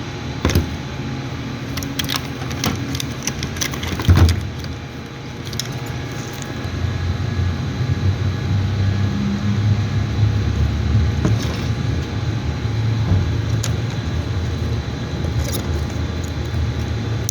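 Fuel pump module parts being handled and fitted together: scattered clicks and a louder knock about four seconds in, then a steady low rumble through the rest.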